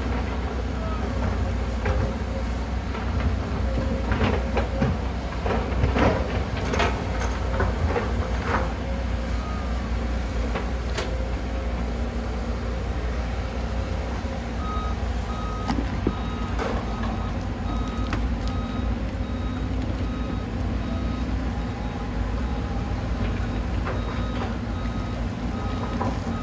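Diesel engines of hydraulic excavators, among them a Komatsu PC200, running steadily with a low rumble while digging, with a run of metal clanks and knocks in the first third. About halfway in, a backup alarm starts beeping steadily, about once a second.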